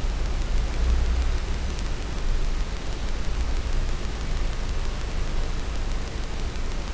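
Steady hiss with a low hum underneath: constant background noise of the recording.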